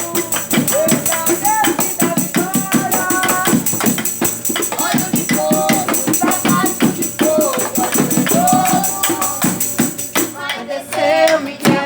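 Live gospel praise music: singing voices over a fast, steady percussion beat, the high percussion dropping out briefly near the end.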